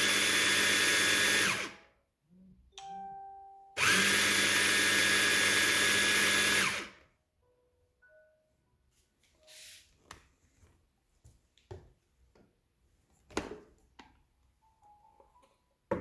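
Saachi hand blender's chopper attachment grinding chickpea paste thinned with water into hummus: a steady motor whine in two runs of about three seconds each with a short pause between. Afterwards come a few light clicks and knocks, and a sharp clack near the end as the motor unit comes off the bowl.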